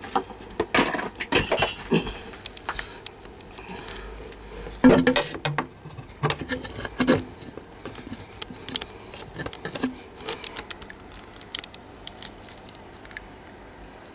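Handling noise: irregular taps, knocks and short scrapes as hands work the plastic jet nozzle tubes in the kayak's water-jet housing, loudest about five and seven seconds in.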